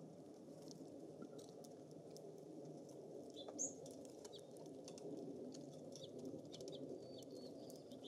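Small songbirds, mostly house finches, feeding at seed feeders: scattered faint ticks of beaks on seed and wire, with a few short high chirps, the loudest about halfway through, over a low steady rumble of breeze.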